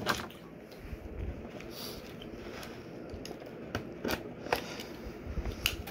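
Cardboard toy box being opened by hand: rustling and scraping of the packaging, with several sharp clicks and snaps as it is pried open.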